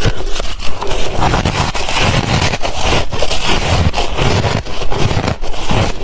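Close-up chewing of crunchy refrozen ice and freezer frost: loud continuous crunching and crackling with dull low thuds as it is bitten and ground between the teeth.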